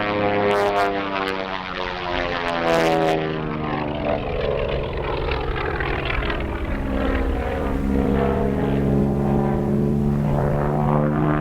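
Propeller airplane engine droning in flight, its pitch sliding down a few seconds in and then rising and steadying as the plane passes and turns. A few short clicks sound in the first few seconds.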